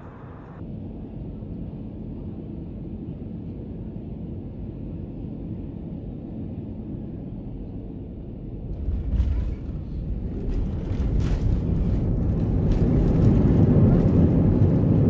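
Airliner cabin noise on landing: a steady low rumble of engines and airflow, then about nine seconds in a jolt with rattling as the wheels meet the runway, after which the engine noise builds to a loud roar as the jet slows, as when reverse thrust is applied.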